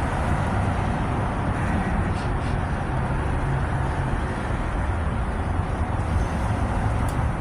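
Steady low rumble of a motor vehicle's engine with a constant haze of noise over it, unchanging throughout.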